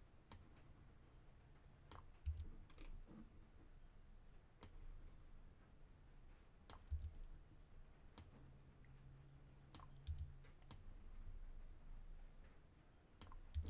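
Faint, scattered single clicks of a computer mouse and keyboard, about a dozen, one to two seconds apart, with a few soft low thumps among them.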